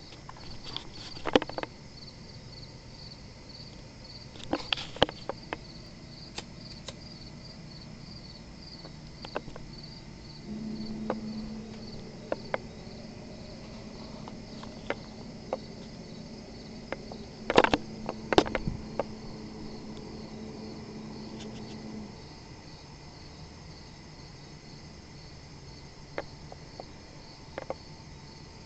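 Crickets chirping steadily in a fast, even pulse. About ten seconds in, a steady low droning hum joins them and holds for roughly twelve seconds before stopping. A few sharp clicks or knocks are scattered through, the loudest a cluster near the middle.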